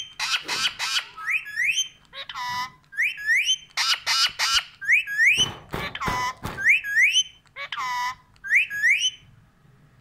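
Pet green parakeet squawking in short harsh screeches, mixed with repeated rising whistles in quick pairs. The calls stop about nine seconds in.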